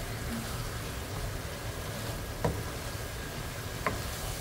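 Spatula stirring diced turnips in a nonstick frying pan, knocking sharply against the pan twice in the second half, over a steady low hum.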